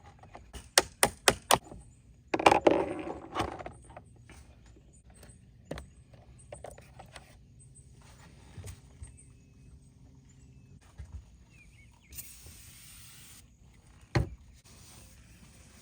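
Small metal retainer clip being handled and fitted onto a truck's third brake light: a quick run of five sharp metallic clicks about a second in, then a scraping rattle, scattered light taps, a brief hiss and one sharp knock near the end.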